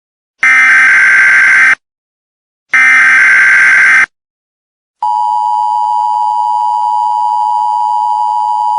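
Emergency Alert System tones: the last two of three SAME header data bursts, harsh digital warbles about a second long, separated by about a second of silence. About five seconds in, the steady two-tone EAS attention signal (853 and 960 Hz) starts and holds.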